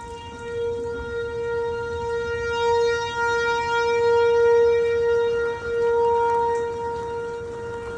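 Outdoor tornado warning siren sounding on one steady pitch, swelling louder to a peak about halfway through and easing off toward the end.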